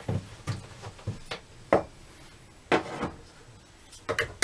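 A string of short, irregular knocks and rubs as a torpedo level and pencil are set against a wall and a centre line is marked.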